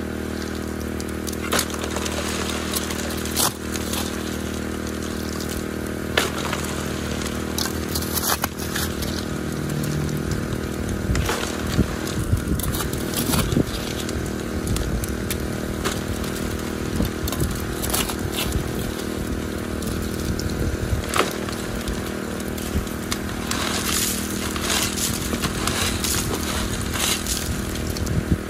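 Small petrol engine driving the highbanker's water pump, running steadily at a constant speed, with scattered clicks and knocks over it.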